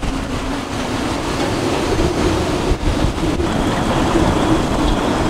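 Gale-force wind of about 30 knots, gusting 35, blowing across a sailboat's deck and rigging and buffeting the microphone, with waves washing around the boat. A loud, steady rush with a wavering low hum running through it.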